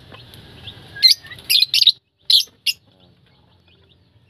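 Peach-faced lovebirds chirping: about six short, shrill calls in quick succession over the first three seconds.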